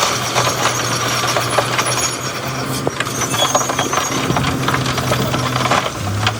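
Heavy earthmoving machinery's diesel engine running steadily under many scattered clanks and knocks. The engine note changes about six seconds in.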